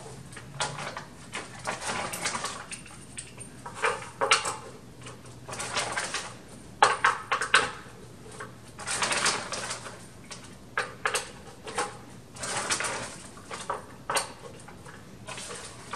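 Plastic caster wheels being pushed into the sockets of a plastic planter base, with irregular clicks, knocks and handling noise as the base is moved about on a tile floor.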